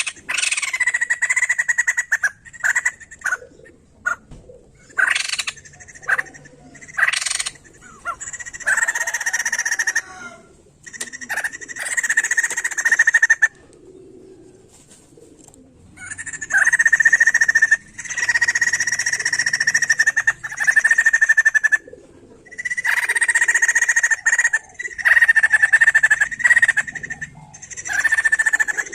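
White-crested laughingthrush (poksay jambul) singing in loud bursts of rapid notes, each a second to three seconds long, with a longer pause about halfway through.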